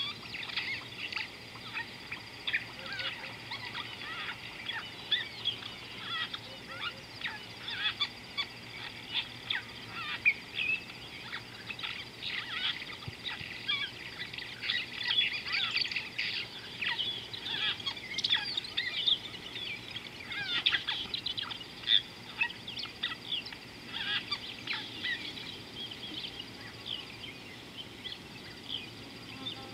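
A chorus of many birds calling at once, a dense stream of short chirps and chattering calls overlapping without a break. Beneath it runs a steady high-pitched whine, which drops out briefly near the end.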